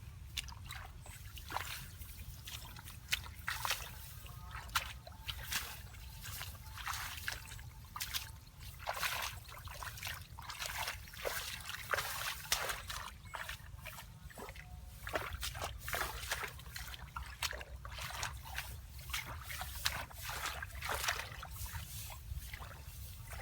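Shallow water splashing and sloshing in irregular bursts, with trickling between them, over a steady low rumble.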